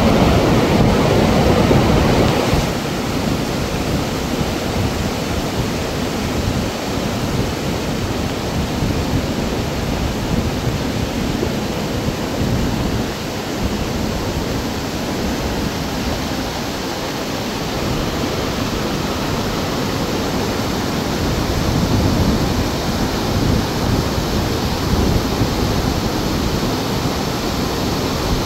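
Muddy flash-flood water rushing and churning down a rocky gully, a steady noisy rush that is loudest for the first couple of seconds and then settles a little lower.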